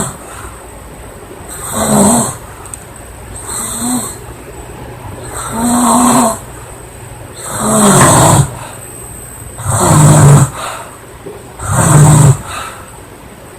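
A woman snoring loudly: six heavy snores about two seconds apart.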